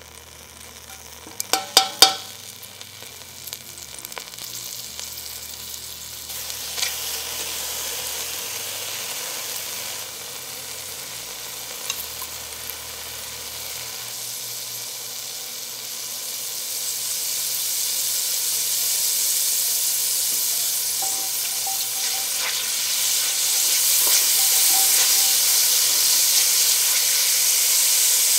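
Minced garlic and red pepper flakes sizzling in hot olive oil in an enamelled cast-iron pot, the sizzle growing steadily louder as the garlic fries and browns. A few sharp knocks about two seconds in.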